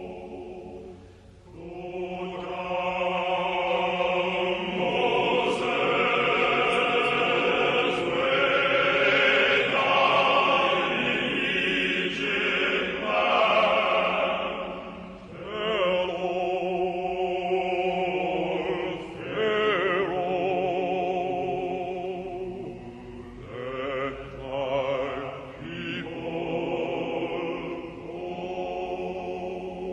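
Choral music: voices holding long, wavering notes in phrases of several seconds.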